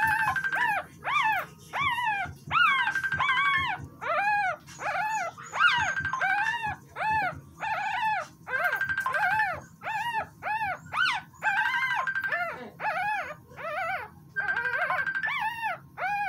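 Newborn toy Schnoodle puppy crying in a rapid run of short, high-pitched squeals, about two a second, each rising and falling in pitch. It is the puppy's distress as an elastic band is tied tight around its tail for docking.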